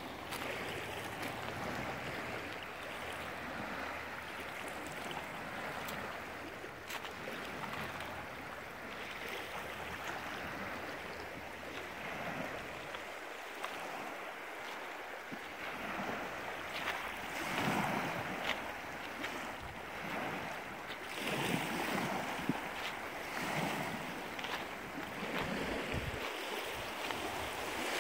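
Small lake waves lapping and washing on a pebble shore, swelling now and then, with wind buffeting the microphone.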